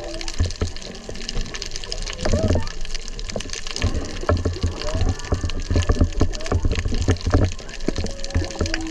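Humpback whale song heard underwater: a few drawn-out moans and rising whoops, with a low steady moan starting near the end. It sits over a constant crackling and the rush of water.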